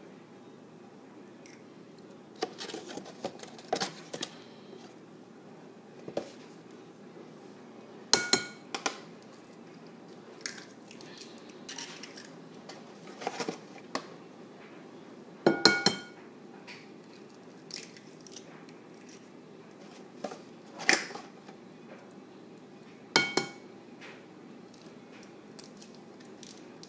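Eggs being cracked against the rim of a mixing bowl: sharp taps, the loudest four spaced a few seconds apart, some with the bowl ringing briefly after. Quieter clicks of shells being handled and pulled apart come in between.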